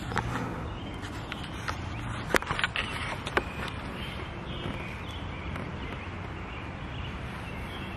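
Steady outdoor background noise with a few sharp clicks or snaps, four of them close together between about two and a half and three and a half seconds in.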